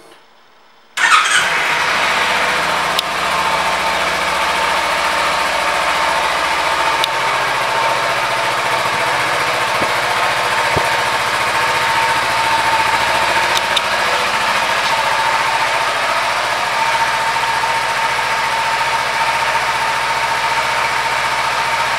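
2014 Kawasaki Ninja 300 ABS's parallel-twin engine starting about a second in, then idling steadily.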